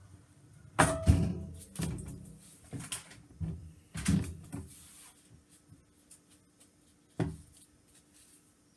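Wooden soap cutter clunking and knocking as a soap loaf is pushed along its board and cut: a cluster of knocks about a second in, a few more around three to four seconds, and one sharp knock near the end.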